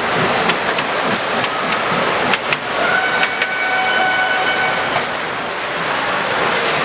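A model locomotive's horn sounds one held note for about two seconds midway, over a steady din of hall noise with scattered clicks.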